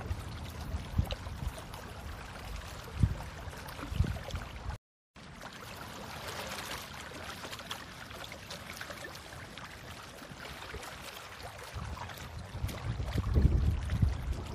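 Wet mud being dug and scooped by hand: sloshing, squelching water noise with irregular low bumps on the microphone, heavier near the end. The sound cuts out completely for a moment about five seconds in.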